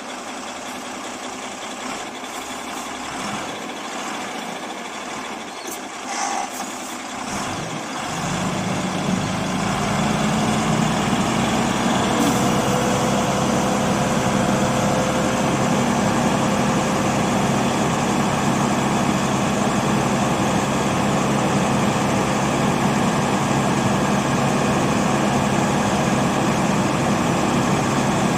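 Dump truck's diesel engine running, then rising to higher, steady revs about eight seconds in as it drives the hydraulic hoist that tips the load body up.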